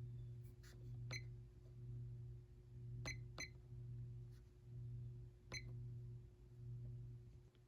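Hampton Bay Waterton ceiling fan's motor running with a low hum that swells and fades about once a second, and a few light clicks. The owner calls it a bit hummy and thinks this may come from one blade missing a screw.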